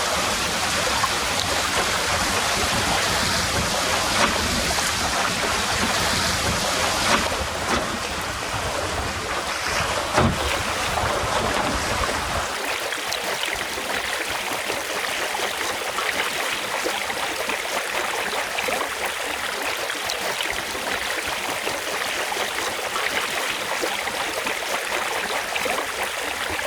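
Water rushing and splashing along the hull of a small sailing dinghy under way, with wind buffeting the microphone. The low wind rumble drops away about halfway through, leaving the hiss of the water.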